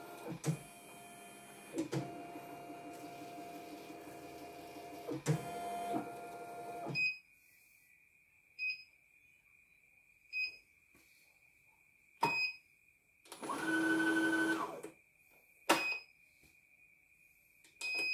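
Computerized CNY E900 embroidery machine's frame carriage motors humming with a few clicks as the hoop moves, stopping about seven seconds in. Then several short beeps as panel buttons are pressed, a brief second run of motor humming near the middle, and a few sharp clicks.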